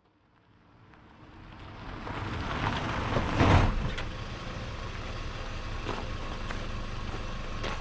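A vehicle engine running, fading in over the first couple of seconds, with a brief louder surge about three and a half seconds in, then running steadily.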